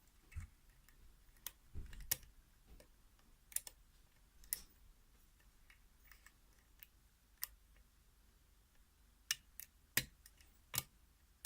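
Faint, irregular clicks of a lock pick working the pins of a pin-tumbler lock fitted with spool security pins, about a dozen scattered ticks with a louder cluster near the end.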